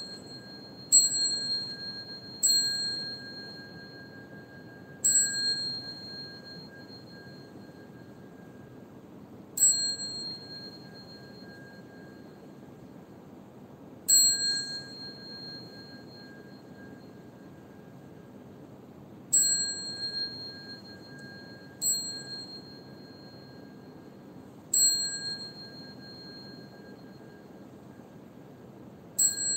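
A small metal bell struck nine times at uneven intervals, each strike ringing out clearly and fading over a second or two. The strokes set the pace of the bows in a Buddhist bowing service.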